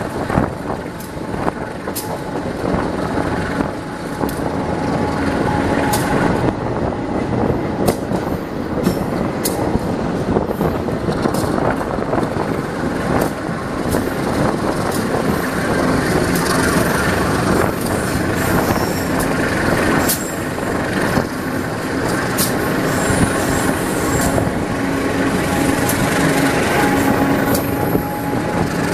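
Train rolling past on the rails, with a steady loud rumble of wheels and many sharp clicks. Thin high-pitched wheel squeals come through in the second half.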